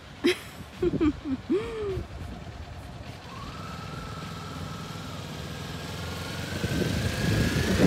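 Kawasaki Ninja 400's parallel-twin engine running as the motorcycle rides slowly closer, its sound getting steadily louder over the last few seconds with a slight rise in pitch.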